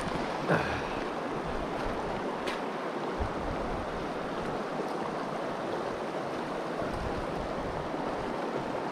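Steady rush of a shallow river flowing over rocks, with a brief knock about half a second in and a couple of faint clicks soon after.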